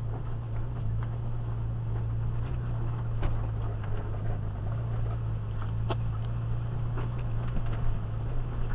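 A 4x4 SUV's engine running steadily on an off-road trail, a constant low drone. Scattered light clicks and knocks come from the vehicle working over rough ground.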